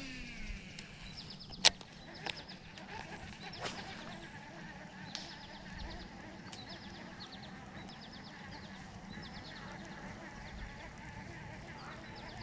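A cast with a baitcasting reel: the spool whirs and falls in pitch as it slows, followed by a sharp tap a little under two seconds in. After that comes a low, steady outdoor background with short runs of quick high ticks every second or two.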